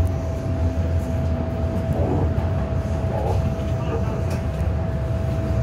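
MTR Island Line M-Train metro car heard from inside, running through a tunnel and into a station: a steady low rumble of wheels on rails with a constant whine.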